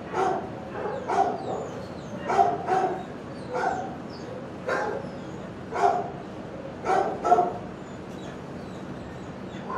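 Dogs barking repeatedly in shelter kennels, about one short bark a second.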